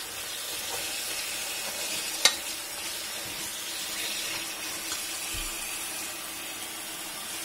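Kitchen tap running a steady stream of water onto chopped vegetables in a multicooker's metal inner pot, filling it for soup. A single sharp knock about two seconds in.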